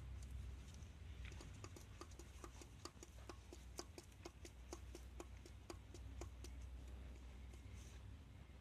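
Hyundai G6BA 2.7-litre V6 engine running with a regular light knock, about four knocks a second, over a low steady hum; the knock fades out about six seconds in. The knock is the engine fault the owner is recording.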